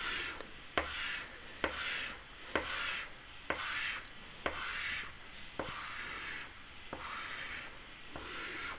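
Soft pastel stick scratching across paper in repeated coloring strokes, about one a second, each starting with a light tap as the stick touches down.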